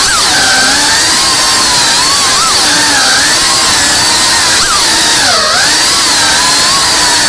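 FPV quadcopter's motors and propellers whining loudly, the pitch rising and falling with the throttle as it weaves. About five seconds in the pitch dips deeply and climbs back.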